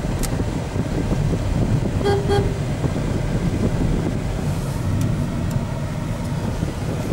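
Steady low rumble of road traffic heard from inside a moving car, with two short beeps of a vehicle horn about two seconds in.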